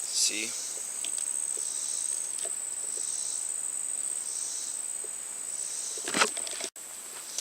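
Insects trilling steadily on one high note, with a second buzzing chorus that swells and fades about every second and a half. A brief thump comes about six seconds in.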